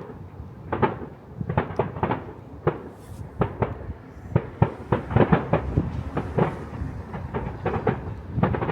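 Fireworks display: a rapid, irregular run of firework shell bursts and cracks, many bangs following one another, with closer clusters after about five seconds.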